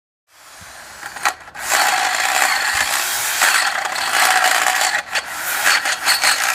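Continuous mechanical ratcheting and grinding noise from tool or mechanism work, starting abruptly after a short silence, with a few sharp knocks about a second in and again about five seconds in.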